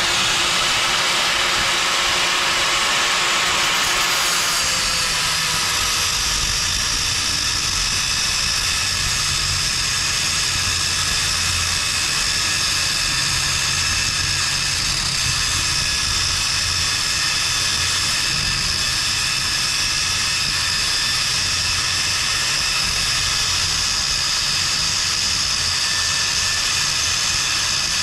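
Handheld angle grinder running at full speed with a steady high whine. About four and a half seconds in its abrasive disc bites into a threaded steel rod held in a drill chuck, and it grinds steadily from then on.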